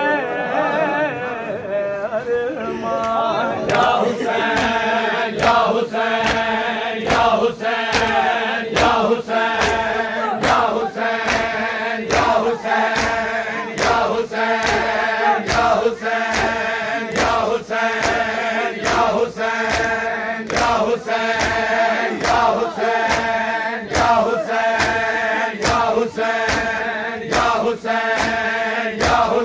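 A group of men chanting a Shia mourning chant (noha) together, with the slaps of hands striking bare chests (matam) in unison, in a steady rhythm of somewhat under two a second that sets in about three seconds in.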